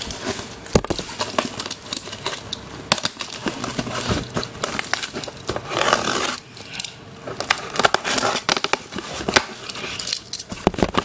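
Packing paper crumpling and rustling as a parcel is unpacked, with many small clicks and knocks from handling the box and its contents.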